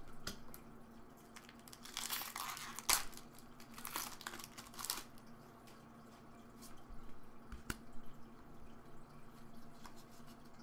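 Pokémon card booster pack's foil wrapper crinkling and tearing open in two bouts of crackling, then cards being handled with a few sharp clicks, over a faint steady hum.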